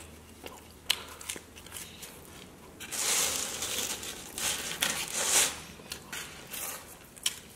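Small clicks of close-miked chewing, then about three seconds in a couple of seconds of loud crinkling and scraping from the paper and cardboard pizza box as a slice is pulled from it.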